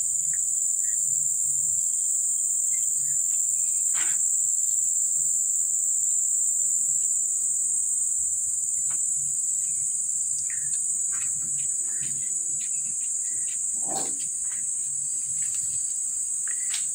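Continuous high-pitched insect chirring, steady throughout, with a few soft knocks and rustles.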